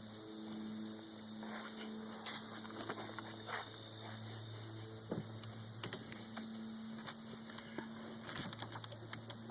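Ford Ranger front end clunking: short irregular knocks over a steady drivetrain hum. The clunk came from a worn inner tie rod.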